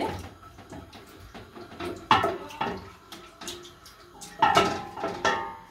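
A stainless steel cooking pot being handled: knocks and scrapes against the metal, with short ringing clangs about two seconds in and again near the end.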